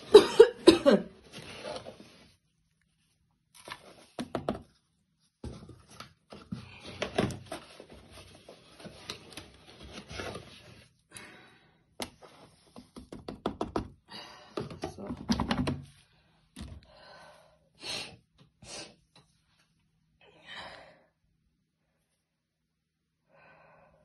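Powdered laundry detergent poured and shaken from its pack into a washing machine's plastic detergent drawer, with irregular knocks and taps as the pack is handled; the loudest knocks come in the first second.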